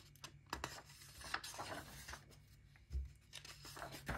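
Paper pages of a colouring book being flipped by hand: several short, soft rustles and flicks of paper, one after another.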